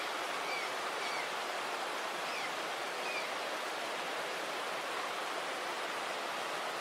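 Steady rush of a fast-flowing river, an even wash of water noise with no change in level. A few faint short high chirps sound over it in the first half.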